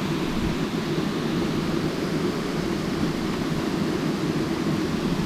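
Steady rushing noise of a waterfall, an even roar that holds unchanged throughout.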